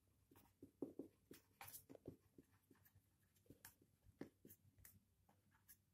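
Near silence broken by faint, scattered scratches and taps of a marker pen writing on a small whiteboard.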